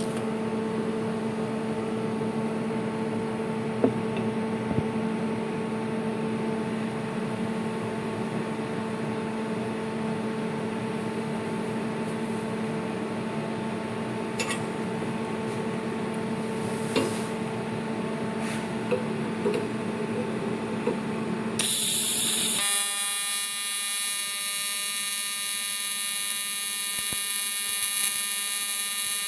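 AC TIG welding arc on aluminium, from a FREE PROTIG AC/DC inverter welder, buzzing steadily with a few faint clicks. About 22 seconds in the buzz changes abruptly to a higher, harsher tone with many overtones.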